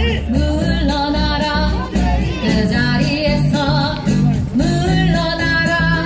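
A recorded song played back: a singer's wavering melody over instrumental backing with a steady bass beat.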